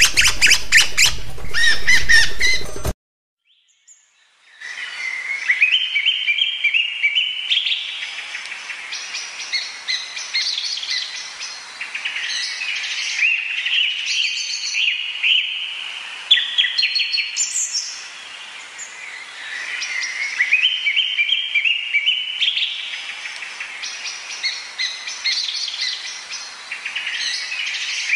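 Music stops about three seconds in, and after a short silence birds are singing: runs of quick notes climbing in steps, repeated every several seconds, with other chirps between.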